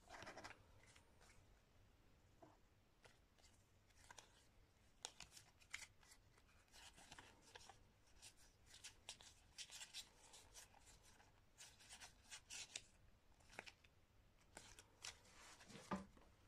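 Quiet crisp rustling and flicking of a deck of playing cards being split and fanned out by hand, with repeated short snaps, most of them through the middle and again near the end.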